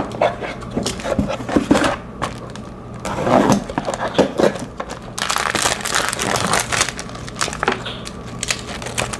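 Clear plastic packets of nail-art parts crinkling and rustling as they are handled, with scattered taps and scrapes from a small cardboard box. The crinkling is densest about five to seven seconds in.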